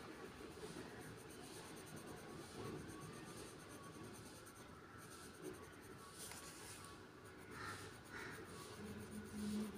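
Coloured pencil scratching faintly on paper in continuous shading strokes.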